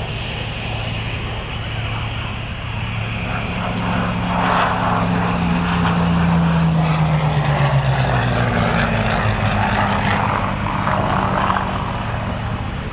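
Hawker Hurricane's Rolls-Royce Merlin V12 engine and propeller as the fighter flies past. The sound builds to its loudest about halfway through, the engine note drops in pitch as the plane passes, and it then eases off slightly.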